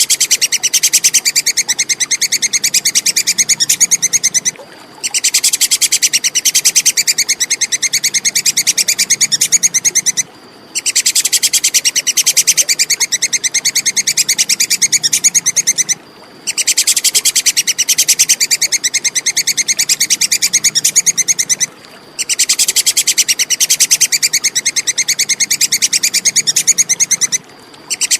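Squirrel's 'kekes' call: a loud, rapid chattering of sharp high notes in bouts of about five seconds, each broken off by a short pause before the next, repeating evenly like a loop.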